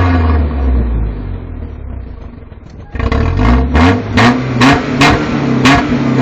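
Toyota Tacoma pickup's engine being revved by pumping the gas pedal. The revs fall away toward idle, then about three seconds in it picks up sharply into a quick series of about six rev blips.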